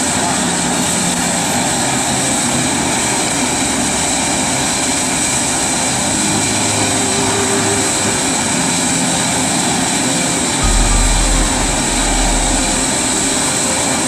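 Industrial biomass pellet burner firing at full flame: a loud, steady rushing noise of the flame and its combustion-air blower. A brief low rumble comes in about three-quarters of the way through.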